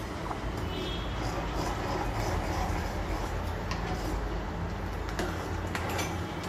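Steel ladle stirring thick soup in a steel pan, swishing through it and clinking against the pan a few times, over a steady low rumble.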